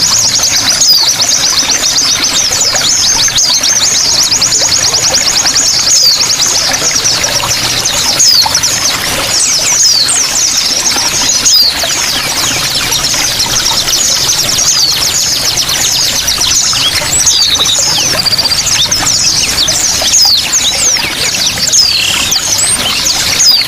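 Small songbirds singing continuously in dense, rapid high-pitched trills and chirps over steadily running water, a training recording of the kind played to teach caged songbirds their song.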